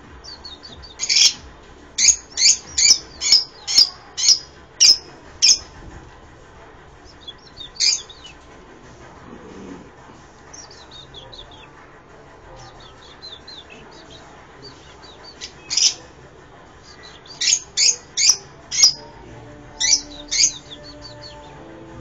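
Caged Fischer's lovebirds calling: runs of loud, sharp, high-pitched chirps about two a second, with quieter twittering between the runs.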